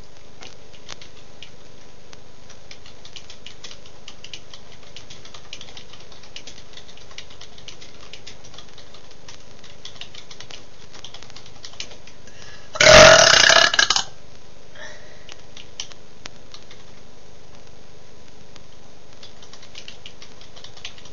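A person's single long, loud burp, deliberately brought up after drinking, lasting about a second around the middle. Faint, irregular clicking runs underneath.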